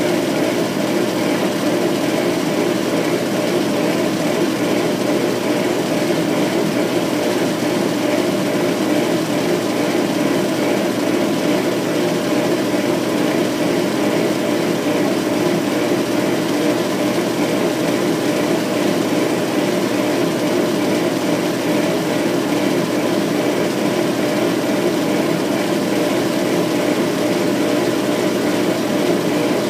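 Laser engraver running while it etches: a steady mechanical whir as its head sweeps back and forth across the bed.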